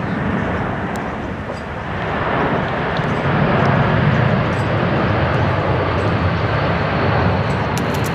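A steady low rumble that swells about two seconds in. Near the end, a thrown petanque boule lands and rolls, crunching and clicking on the gravel court.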